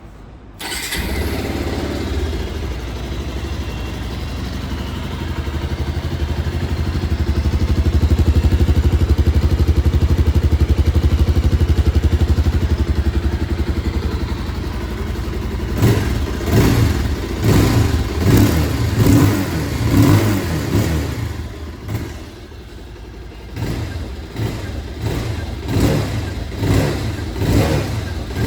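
Bajaj Pulsar 220F's 220 cc single-cylinder engine heard through its exhaust. It starts up under a second in and runs steadily, then holds at higher revs for several seconds. From about halfway it is blipped through a string of quick revs, with a short pause before a final run of revs.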